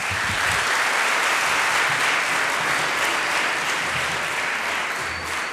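Auditorium audience applauding: sustained clapping from a large crowd that sets in as a speech ends and slowly tapers off.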